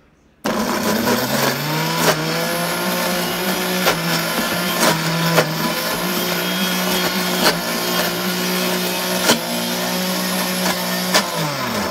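NutriBullet Smart Touch blender's motor on its low setting blending an Oreo milkshake: it spins up about half a second in, runs steadily with a few sharp clicks, then winds down and stops near the end.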